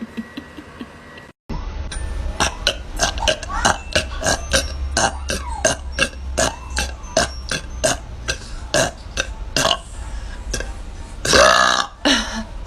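A run of sharp clicks, about three a second, then near the end a woman's loud, drawn-out burp.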